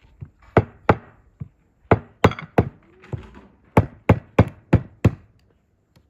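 A series of about ten sharp knocks, in three quick runs of two, three and five strokes at roughly three a second.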